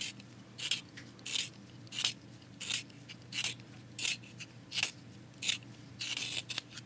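Colored pencil being sharpened in a small handheld plastic ColorIt sharpener, the blade shaving the wood and lead in short strokes as the pencil is twisted, about one and a half a second.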